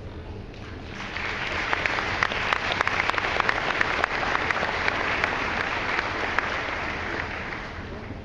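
Audience applauding, a dense patter of many separate claps that swells about a second in and dies away near the end.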